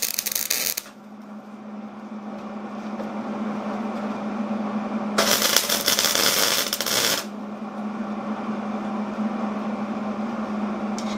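Arc welder laying tack welds to fix a steel blade face plate onto a cast iron anvil: a loud crackling arc for about the first second, then again for about two seconds midway, over a steady hum.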